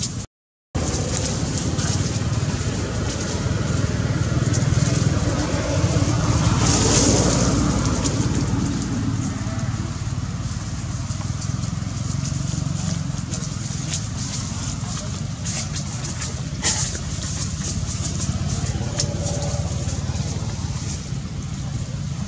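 Steady low rumble of road traffic, swelling as a vehicle passes a few seconds in, then easing. There is one sharp click later on.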